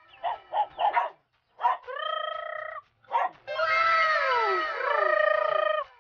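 Several dogs barking and crying. First come a few short barks, then one long drawn-out cry, then a chorus of overlapping cries that fall in pitch.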